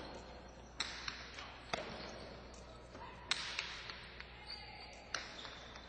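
Jai-alai rally: the hard pelota cracking against the fronton walls and into the players' cestas. Four loud hits about a second or two apart, with lighter clicks between them, each ringing in the large hall.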